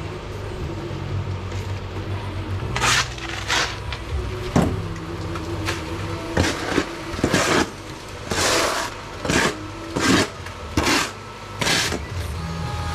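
A shovel scraping through concrete mix about a dozen times in short, uneven strokes, starting about three seconds in, over a steady low engine hum.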